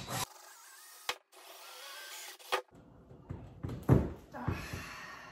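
Cordless drill turning a small hole saw into the plastic wall of a trash can, in short runs with clicks between them. A sharp knock about four seconds in is the loudest sound.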